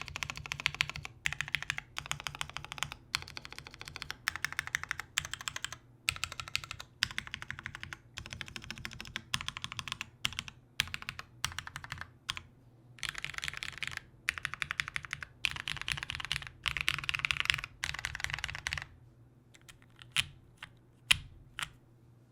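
OTD 360c mechanical keyboard with vintage Cherry MX Black linear switches in a full aluminium plate and GMK Plum keycaps, keys spammed in quick bursts of rapid keystrokes, each lasting about a second with short gaps. Near the end it gives way to a few single key presses.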